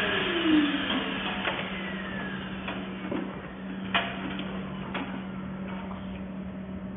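Handheld vacuum cleaner's motor spinning down after switch-off, its whine falling in pitch over the first second. Then a few sharp clicks and knocks, the loudest about four seconds in, over a steady low hum.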